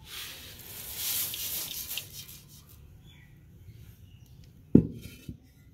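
Roasted peanuts poured from an aluminium pot into a steel basin of rice flour: a hissing rush of sliding, pattering nuts for about two seconds, then quieter. A little before the end, a single sharp knock with a short ringing tail, the loudest sound.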